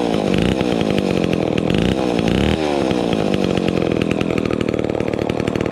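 Homelite XL12 two-stroke chainsaw engine running just after a cold start, its revs dipping and picking up again twice, right at the start and about two and a half seconds in, then running on fairly steadily.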